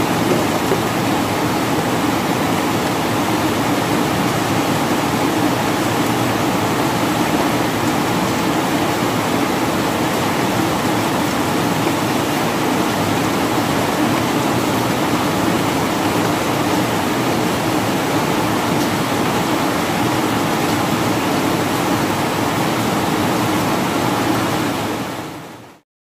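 Steady rain falling, a continuous even hiss, fading out in the last second.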